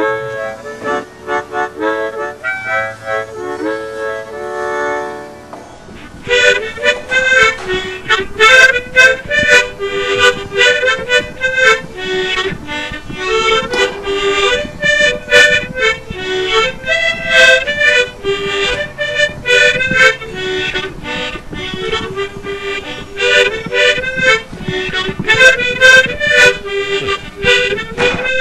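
Background music with a melody line; a louder, busier section with more sharp attacks comes in about six seconds in.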